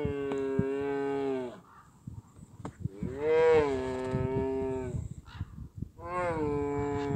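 Three long, drawn-out animal calls of about two seconds each, held at a steady pitch, with short pauses between them.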